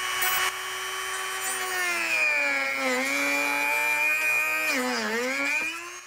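Small high-speed rotary tool with a cutoff disc running and cutting through a plastic hinge pin. Its steady whine sags in pitch twice, around three and five seconds in, as the disc bites into the plastic, and it quietens just before the end.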